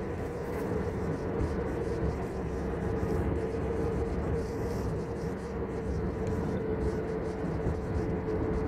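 Steady vehicle noise heard from inside a moving car: an even rumble of road noise under a constant engine drone.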